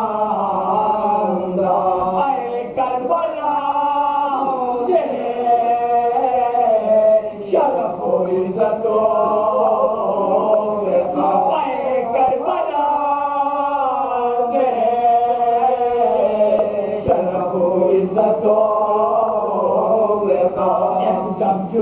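Group of men chanting a marsiya in soz style, several voices together on long, held, slowly gliding notes, with a steady low drone underneath.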